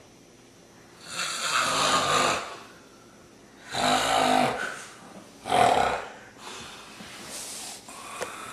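A person snoring: three loud snores about two seconds apart, then softer breaths near the end.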